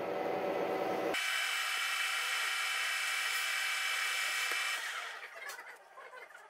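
Boring-machine spindle cutting into a welded aluminium cylinder-head support. A lower rumble gives way about a second in to a steady whine with several tones, which winds down about five seconds in. Light metallic clicks of aluminium chips follow.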